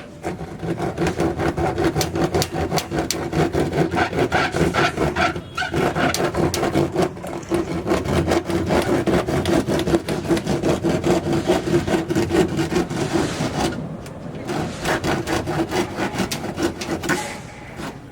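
Fast, continuous scraping strokes over a steady hum, breaking off briefly twice: hand-tool work on a building site, such as rasping, sanding or sawing.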